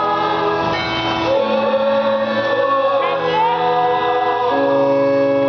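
Church choir singing a hymn in long held chords, the notes changing together every second or so.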